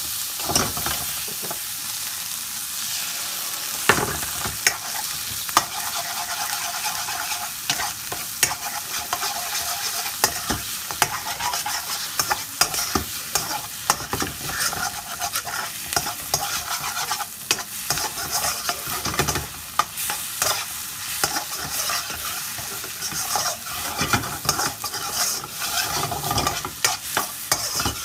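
Vegetables sizzling in a hot wok over a gas flame, with a metal ladle scraping and knocking against the wok as they are stir-fried. The steady sizzle is broken by frequent short scrapes and clinks.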